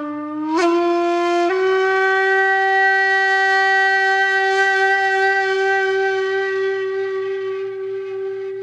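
Background music: a solo wind instrument playing slow, breathy notes. It steps up twice, then holds one long note with a slight waver that slowly fades.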